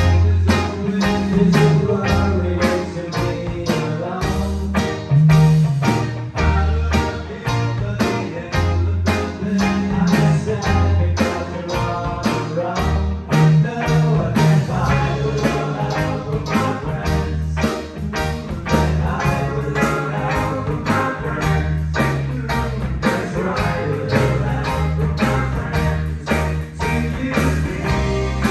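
Live band playing at rehearsal: a moving bass line and drums keeping a steady beat, with guitar on top.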